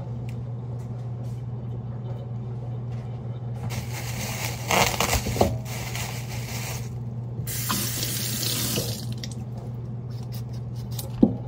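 Kitchen faucet running into a stainless steel sink while vegetables are rinsed, turned on about three and a half seconds in and running for several seconds with a short break in the middle. A sharp knock near the end.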